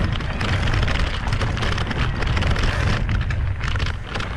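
Wind buffeting the microphone and an e-bike's tyres rumbling over a rough dirt forest trail, with frequent short knocks and rattles as it rides over bumps.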